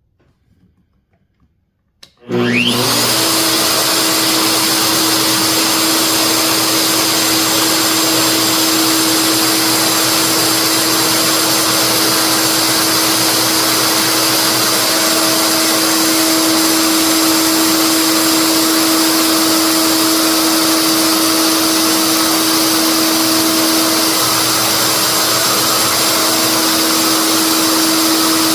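Wood router switched on about two seconds in, spinning up with a quick rising whine, then running loud and steady at full speed while routing a mortise for a latch.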